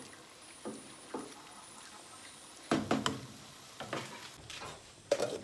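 Wooden spoon stirring beans simmering in a pot, with a few soft knocks of the spoon against the pot. The loudest come about three seconds in, followed by a sharp clack near the end.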